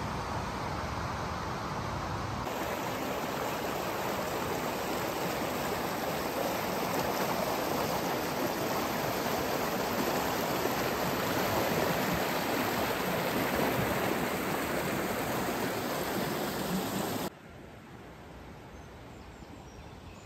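Rushing river water, a steady dense rush that grows a little louder a couple of seconds in, then cuts off suddenly near the end, leaving a quieter background hiss.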